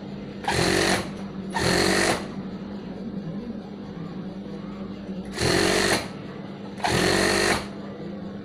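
Industrial lockstitch sewing machine stitching in four short runs of about half a second to under a second each, two close together near the start and two more past the middle, with a steady hum between them.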